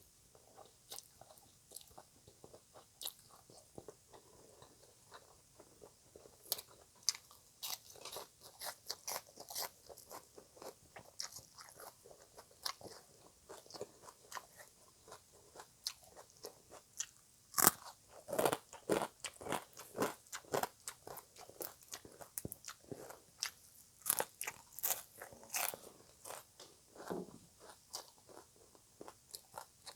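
Close-up chewing and crunching of green papaya salad (som tam): a run of irregular crisp crunches and wet mouth clicks, busiest and loudest in the second half.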